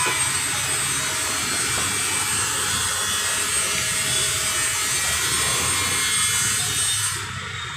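Steady hiss with light scraping and rubbing as a knife works over a steel food counter. The hiss cuts off suddenly near the end.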